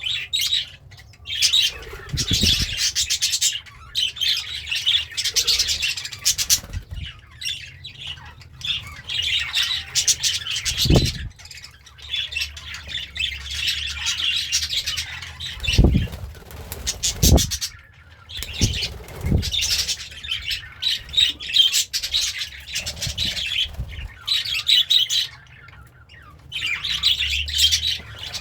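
Budgerigar warbling in fast, chattering high-pitched bursts of a few seconds each, with short pauses between them. A few low thumps come in between, about five of them.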